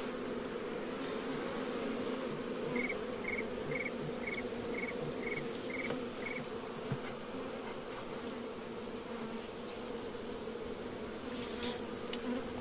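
Honey bee swarm buzzing at close range, a steady even hum from a calm swarm. Between about three and six seconds in, a run of about eight short high chirps, about two a second, sounds over the buzz.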